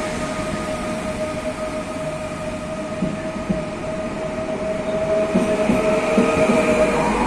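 PESA Elf (class 27WEb) electric multiple unit pulling out of the station: a steady electric whine from its traction drive that rises in pitch near the end as it accelerates. From about five seconds in, the wheels give a rhythmic knocking that grows louder as the cars pass.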